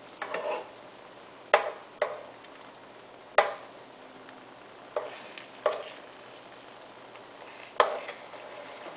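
Metal spoon scooping sauce in a pan, clinking sharply against it about seven times at irregular moments, as liquid is spooned over simmering eggplant. A faint steady sizzle of the simmering sauce runs underneath.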